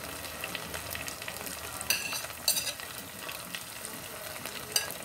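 Chicken pieces sizzling in a stainless-steel pot as sliced bell peppers are pushed in off a plate with a knife, with a few sharp clicks and scrapes of the knife on the plate over a steady frying hiss.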